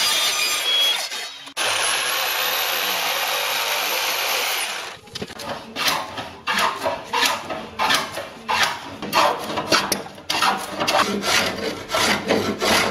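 An electric mitre saw running through pine for about the first five seconds, with a brief break, then a hand plane taking shavings off a pine board in quick, regular strokes, about two a second.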